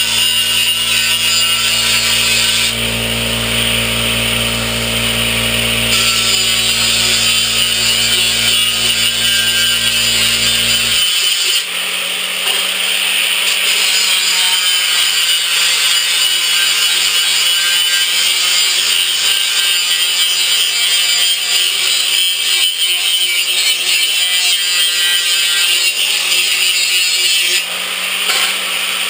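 Power tool cutting sheet steel, a continuous loud whine with a rough cutting edge. A low rumble under it drops out about eleven seconds in.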